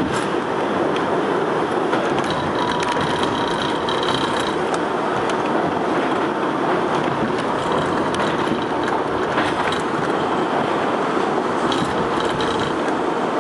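R62A subway car running through a tunnel, heard from on board: a steady rumble of wheels on rail with scattered clicks. Brief high-pitched squeals come in about two and a half seconds in and again near the end.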